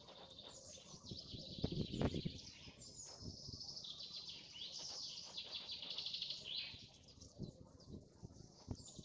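Small birds singing: a fast, continuous run of high chirps and trills. A few low rumbling thumps, the loudest about two seconds in.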